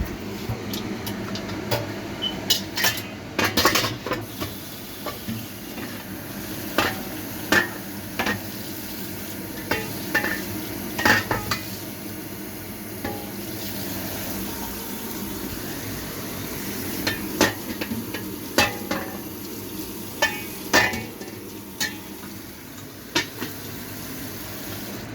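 Kitchen utensils clinking and knocking against pots and bowls while cooking noodles: irregular sharp taps, some ringing briefly, over a steady hiss.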